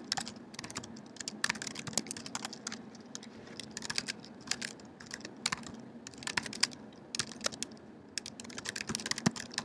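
Typing on a computer keyboard: irregular runs of key clicks as code is entered, with a brief pause a little before the end.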